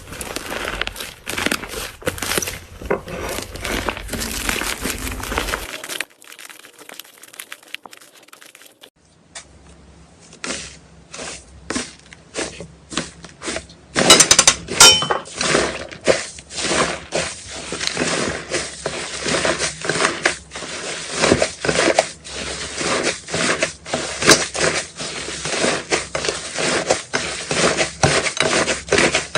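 Slime being squished and poked: a dense run of crackling clicks and small pops. There is a quieter stretch between about six and nine seconds in, and the sharpest pops come about fourteen seconds in.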